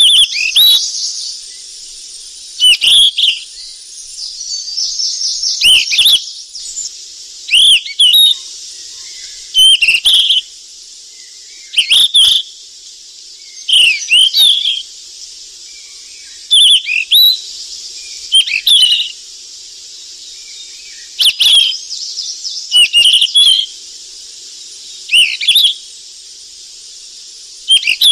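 Flycatcher singing: short, loud, curling calls repeated about every two seconds, some in quick pairs, over a steady high hiss.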